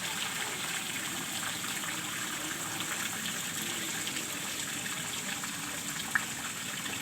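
Steady sound of running water, flowing and splashing without a break, with one short sharp click about six seconds in.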